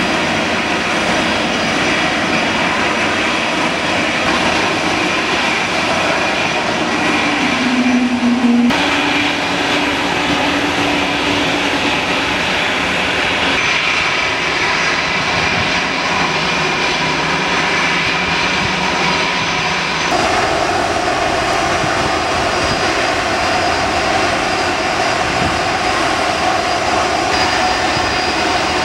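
Turbofan engines of airliners taxiing at idle, among them a Tupolev Tu-204: a steady jet whine over a continuous rush. The tone changes abruptly about a third of the way in, and twice more at cuts.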